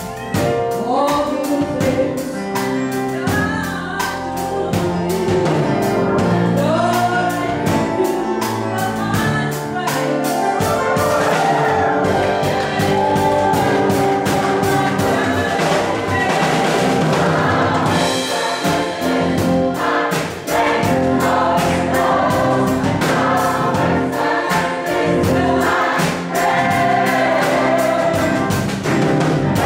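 Gospel choir singing with a woman's solo voice on a microphone, backed by a band with a steady drum beat.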